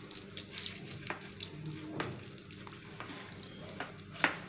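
Aluminium foil crinkling and crackling as it is folded and pressed by hand around a small chocolate, in scattered faint crackles with a sharper crackle near the end.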